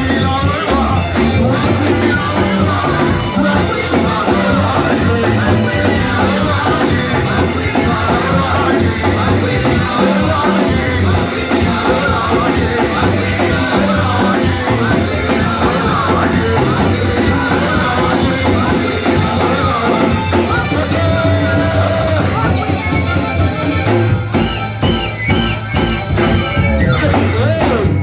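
Live church worship music: a band playing with voices singing.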